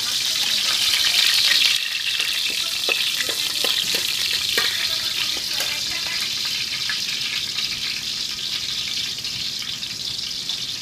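Oil sizzling in a steel wok, with a steel spatula clinking and scraping against the pan in the first half. The sizzle is loudest in the first couple of seconds, then drops suddenly and carries on more quietly.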